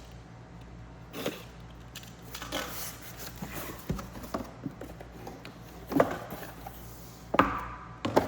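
Irregular knocks, scrapes and rustles from handling a sealed cardboard grinder box and its packaging while it is being opened, with the loudest knocks about six and seven and a half seconds in.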